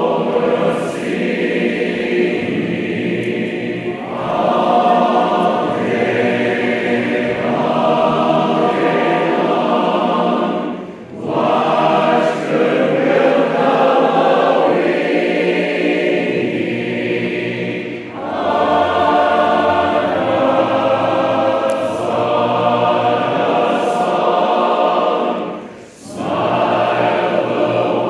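A large crowd and a stage chorus singing together in barbershop-style harmony, in long sustained phrases with short breaks for breath about every seven to eight seconds.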